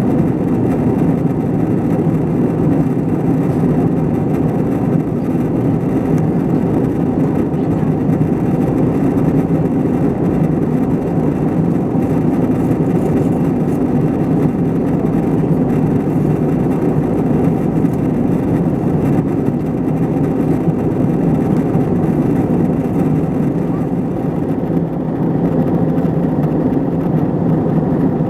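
Steady in-flight cabin noise of an Airbus A321ceo airliner: engine and airflow roar, low and even, with a faint steady hum in it.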